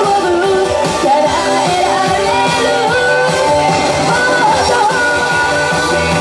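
A woman singing live into a handheld microphone over loud backing music.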